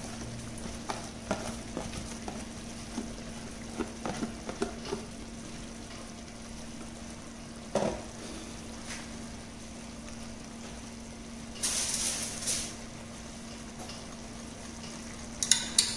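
Faint sizzling of the onion and chicken masala cooking in an aluminium pot, over a steady low hum. A few light clicks come early on, a single knock about eight seconds in, and a short louder hiss about twelve seconds in.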